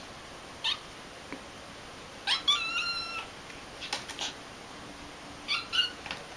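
Cat giving short, high-pitched meows in three bouts, with a couple of sharp clicks between the second and third.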